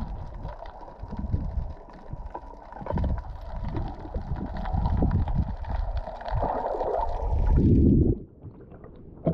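Muffled underwater sound picked up by a camera below the surface: water rushing and gurgling with scattered bubble clicks, growing louder near the end. It drops away suddenly about eight seconds in as the camera comes up out of the water.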